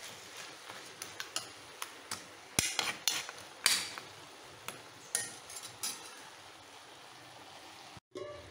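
A metal spoon stirring and scraping a thick pork fry in a cast-iron pan, with irregular sharp clinks against the pan over a faint steady sizzle. The clinks come thickest in the middle and thin out after about six seconds.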